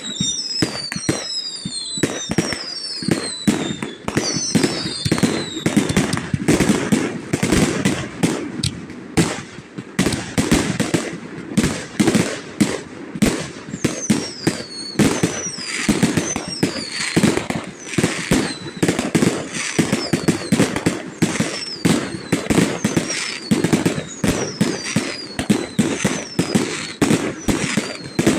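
Fireworks display: a rapid, continuous barrage of bangs and crackling. High whistles fall in pitch again and again in the first few seconds, and again from about halfway through.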